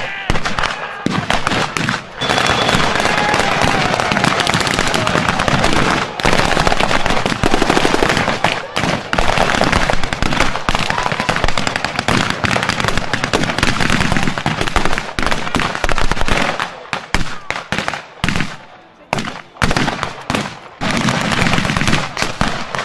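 Dense battle gunfire from WWII-type rifles and machine guns firing blanks, shots overlapping almost continuously and thinning to separate shots about two-thirds of the way through.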